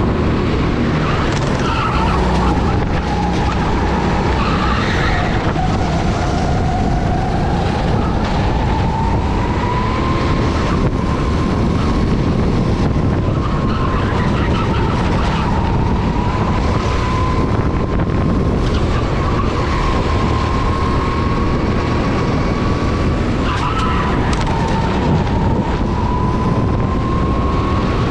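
Go-kart engine running hard at high revs, heard onboard. Its high whine dips and climbs again several times as the kart slows for corners and accelerates out, over a steady noisy rush.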